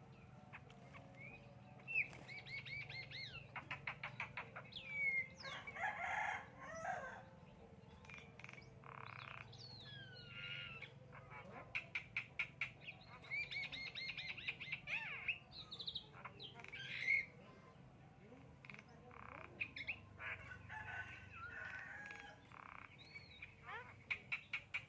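Javan myna (jalak kebo) singing in repeated bouts: rapid runs of clicking, chattering notes mixed with sliding whistles and a few harsh calls.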